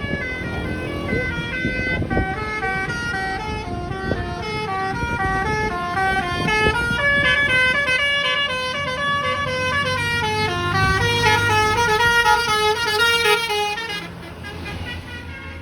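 Bus telolet horn, a multi-tone musical air horn, playing a fast melody of short stepped notes that stops about 14 seconds in.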